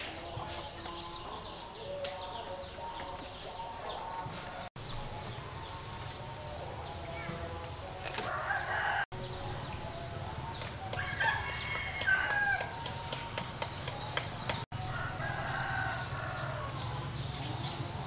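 Chickens clucking, with a rooster crowing loudly once past the middle, over light knocks of bamboo poles being handled.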